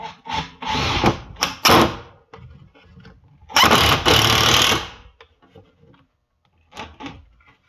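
Makita cordless driver running in two bursts of about a second and a half each, driving 3-inch screws into a wooden board.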